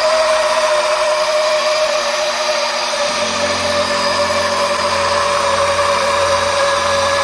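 Fiberglass roving chopper gun running: a steady motor whine over a hiss, its pitch sagging slightly, with a lower hum joining about three seconds in.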